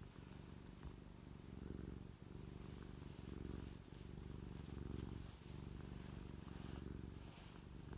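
Black-and-white domestic cat purring close to the microphone: a steady low rumble in long even cycles, dipping briefly every couple of seconds.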